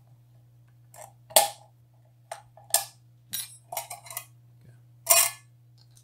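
Clicks and knocks from a RIA VR-series shotgun magazine being taken apart by hand with a punch: parts tapping and clacking against each other and the table, a series of sharp hits with the loudest about one and a half seconds in and another near the end. A steady low hum runs underneath.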